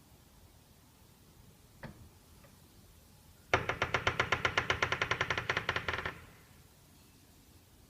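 Bodyguard 5/2 steel entrance door creaking as it swings: a single click, then a rapid ratcheting creak of about ten pulses a second lasting about two and a half seconds. This is a creak that has appeared on the fourth day after installation.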